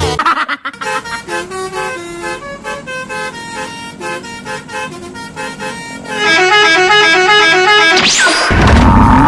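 Bus telolet multi-tone horn (Basuri type) playing a quick melody of stepped notes, louder and faster from about six seconds in. Near the end a loud rushing noise with sliding tones takes over.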